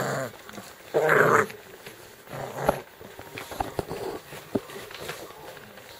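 Five-week-old pit bull puppies vocalizing as they play-fight: a loud puppy call at the start and a longer one about a second in, a shorter one at about two and a half seconds, then scuffling with a few small clicks.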